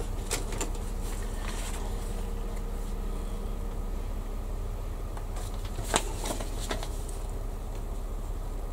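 Steady low hum, with a few light clicks and taps of small parts being handled on a workbench, the loudest about six seconds in.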